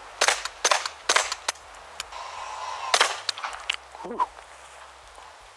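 Suppressed .45 pistol firing a string of shots: several in quick succession in the first second and a half, then a louder pair about three seconds in.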